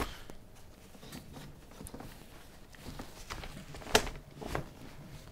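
Handling noise from the UPPAbaby Vista V2 stroller seat and frame: soft plastic knocks and rustles, with a sharp click about four seconds in and a fainter one half a second later.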